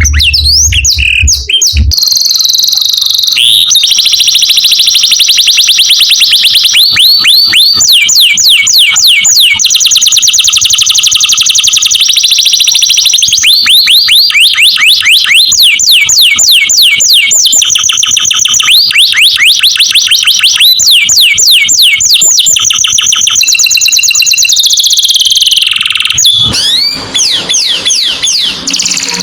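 Domestic canary singing a long, continuous song of rapid trills and rolls, each phrase a fast run of repeated rising notes, switching to a new phrase every second or two. A low hum sounds under the song for the first two seconds.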